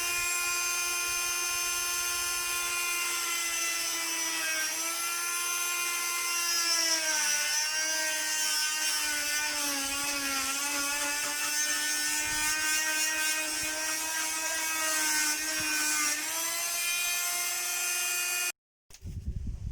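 Electric drill motor running continuously with a steady whine whose pitch drifts slowly up and down as the speed changes, cutting off suddenly near the end.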